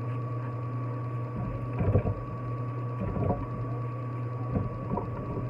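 Pieces of cucumber dropped into a plastic blender jar: a few short knocks, the loudest about two seconds in, then three more spread over the next three seconds. A steady low hum runs underneath.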